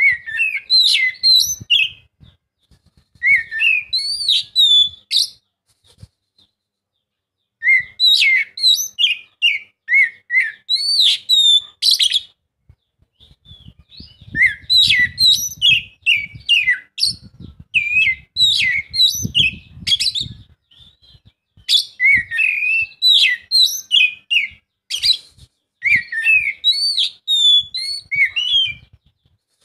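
Oriental magpie-robin (kacer) singing loud, varied whistled song in phrases of a few seconds at a time, with short pauses between them.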